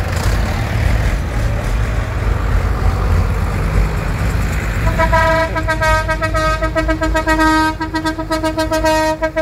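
Diesel tractor engines rumbling as tractors drive past in procession. About five seconds in, a vehicle horn starts sounding one long, steady note over the engine noise.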